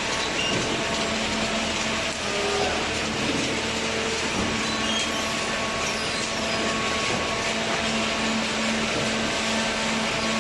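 Horizontal hydraulic baler for corrugated cardboard running: a steady machine noise with a constant hum from its motor and pump.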